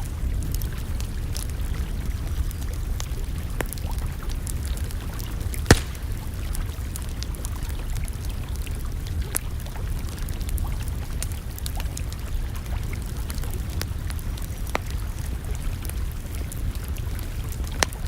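Wood campfire crackling, with scattered small pops and one sharper pop about six seconds in, over a steady low rumble.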